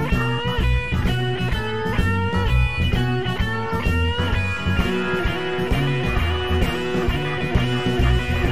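Live blues band in an instrumental break: electric guitar playing a lead line of bent notes over drums and bass. About halfway through, the lead gives way to a steadier, fuller layer of held organ chords.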